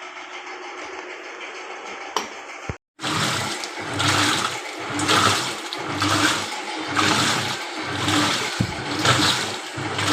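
LG WF-T7066MN top-loading washing machine in its wash cycle with a freshly fitted gearbox: water sloshing in the tub in a regular surge about once a second as the pulsator turns back and forth. A steady hiss comes first and breaks off briefly about three seconds in, before the sloshing starts.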